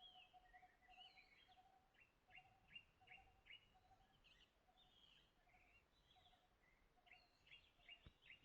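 Faint birds calling: a short low note repeating about twice a second, under clusters of quick, high, downward-sweeping chirps.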